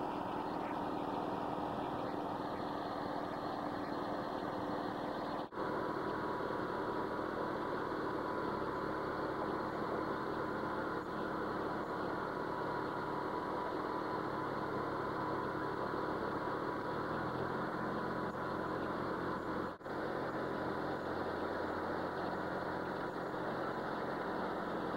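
Engine of a mobile dimension sawmill running steadily, its low note shifting about two-thirds of the way through, with two brief dropouts in the sound.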